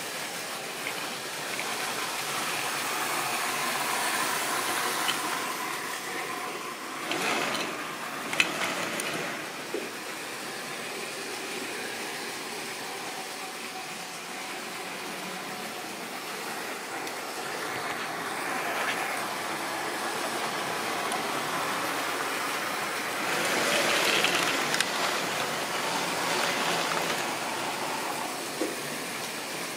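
Model trains running on sectional track: the steady whirr of locomotive motors and the running noise of wheels on rail, swelling as trains pass close by, with a few sharp clicks about seven and eight seconds in.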